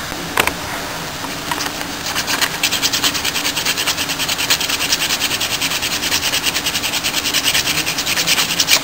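Wood being sanded by hand on sandpaper on a wooden bench: rapid, even back-and-forth scratching that starts about two seconds in. A single knock sounds just before, near the start.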